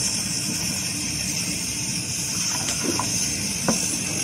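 MSR Dragonfly liquid-fuel stove burning with a steady hiss while it warms up after priming, before its generator is hot enough for the flame to settle. A few light knocks come about three seconds in.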